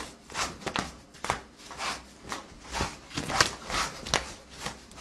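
Close-range hand-fighting: a quick, irregular run of short slaps and swishes as arms strike, block and brush against each other and against clothing.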